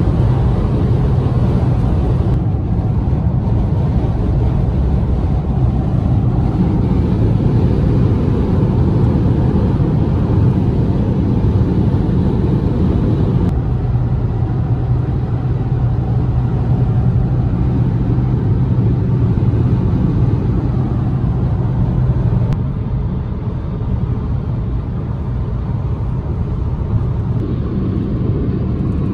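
Steady in-cabin drone of a Chevrolet Spark's 1.4-litre four-cylinder engine with tyre and wind noise at highway speed. The tone shifts abruptly about two, thirteen and twenty-two seconds in, and the sound is a little quieter after the last change.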